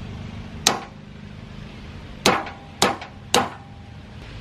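Mallet striking the metal body of an old V-twin air compressor during disassembly: one sharp knock, then three more in quick succession about half a second apart, some leaving a short metallic ring.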